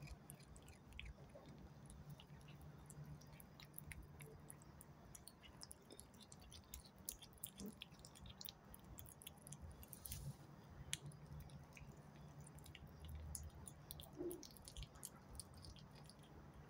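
A kitten chewing a piece of raw steak: faint, irregular wet clicks and smacks of its teeth and mouth on the meat.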